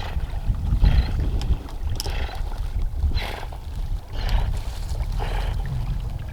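Wind buffeting the microphone, with short splashes of water about once a second.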